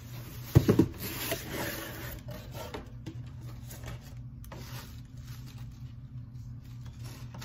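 A cardboard advent calendar box being handled: a single knock about half a second in, then rustling and scraping of cardboard and paper as a day's packet is taken out. A low steady hum runs underneath.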